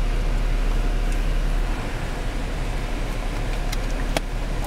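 Car engine idling, a steady low rumble heard from inside the cabin, with a few short sharp clicks near the end.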